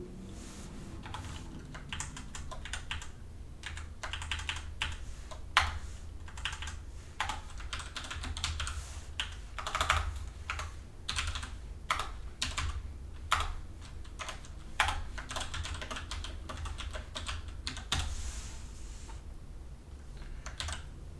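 Typing on a computer keyboard: runs of key presses at an uneven pace, with a few louder single strokes, over a low steady hum.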